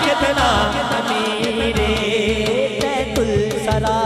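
A man singing a Punjabi devotional qasida into a microphone, his voice rising and falling in long melismatic lines, over a steady percussion beat.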